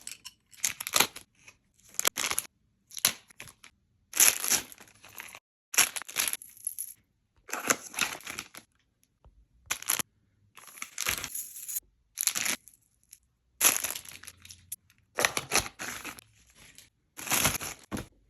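Plastic packaging being torn open and crinkled while unwrapping jewelry. It comes in irregular short bursts of rustling with quiet gaps between them.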